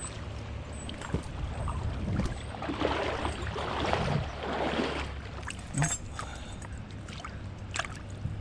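Water splashing for about three seconds near the middle, over a steady low rumble.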